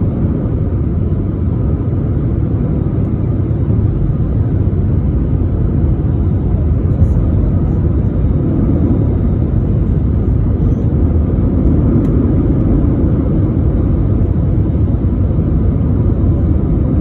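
Steady low rumble of an Airbus A320's engines and rushing air, heard from inside the passenger cabin on the approach to landing.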